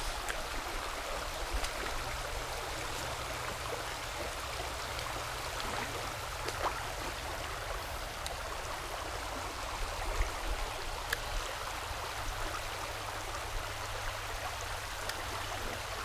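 Shallow creek water running steadily over rocks: a continuous, even rush, with a few faint clicks.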